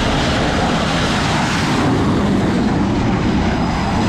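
Fighter-jet engine sound effect: a loud, steady rushing noise.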